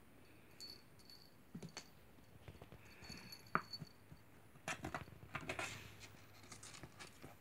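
A kitten at play: faint scattered rustles, scratches and small clicks as it paws at plastic strapping strips and a fabric cat cube, busiest just past the middle.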